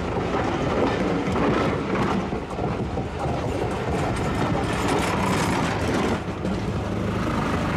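A train hauled by an LNER Class A4 steam locomotive running on the track: a steady, loud rumble of engine and wheels with continual rattling and clatter.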